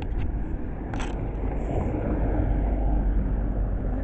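Outdoor street ambience: a low rumble that swells to its loudest about two to three seconds in and eases off, with a single short click about a second in.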